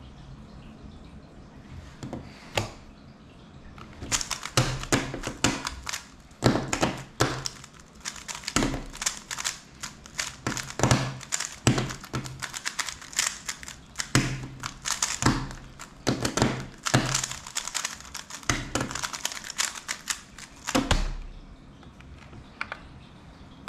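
MoYu WeiLong WR M 2021 3x3 speedcube turned fast with one hand: a rapid, irregular run of plastic clicks and clacks as the layers snap through turns, lasting about seventeen seconds. It stops about three seconds before the end with a thump as the solved cube is set down and the timer is stopped.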